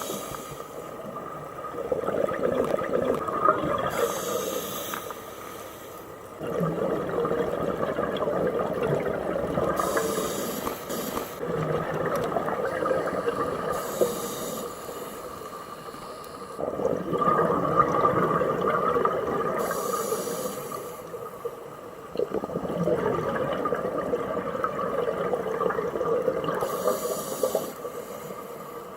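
Scuba diver breathing underwater through a regulator. Each breath is a short hissing inhale followed by a long gurgling rush of exhaled bubbles, repeating about five times.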